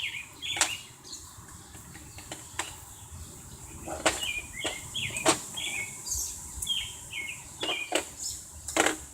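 Irregular sharp clinks and knocks of hand tools on the valve cover bolts of a John Deere engine, as the bolts are taken out with a socket set. Birds chirp in short bursts between them.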